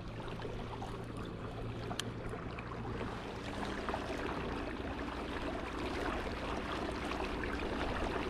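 Water swishing and lapping against a kayak's hull as it moves along, a steady wash of noise with a faint low hum beneath and a single sharp click about two seconds in.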